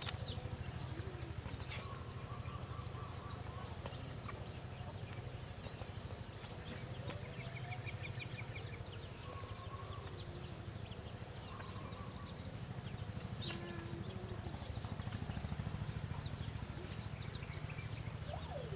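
A rabbit chewing, with many quick small clicks, over a steady low rumble, with birds chirping now and then in the background.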